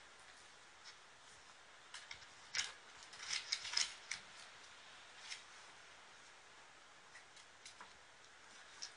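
Corgi puppy mouthing the metal wire bars of a playpen: scattered small clicks and scrapes of teeth on wire, bunched together about two and a half to four seconds in.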